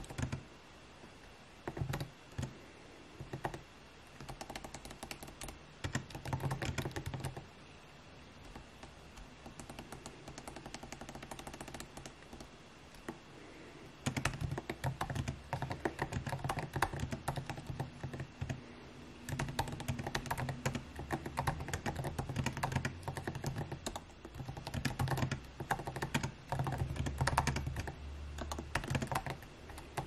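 Typing on a MacBook laptop keyboard: quick runs of key clicks in bursts, with short pauses between them.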